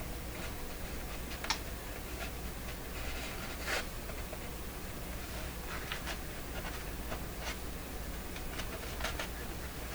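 Paper speaker cone being handled while glued paper patches are pressed and smoothed into it: soft irregular scratching and light ticks, a few scattered through, over a steady low hum.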